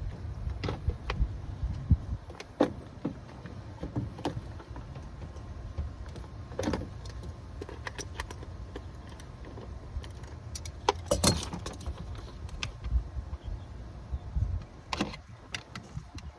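Irregular metallic clicks, clinks and knocks of hand tools and parts as a stubborn part is worked loose on a portable generator, over a low rumble; the busiest clatter comes about eleven seconds in.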